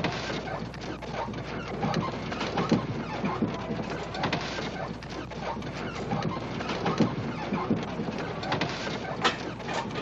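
Busy street sounds of children playing, full of irregular knocks and clatter, starting abruptly.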